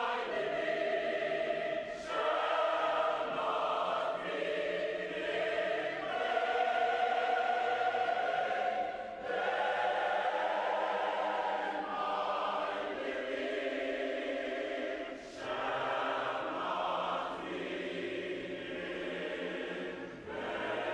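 Large choir singing sustained chords in long phrases, with brief breaks between phrases.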